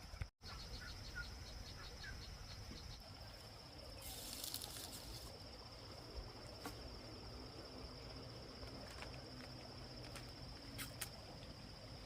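Insects trilling: a steady, high, thin insect song, in quick even chirps for the first few seconds and then a continuous trill, with a short hiss about four seconds in and a few faint clicks near the end.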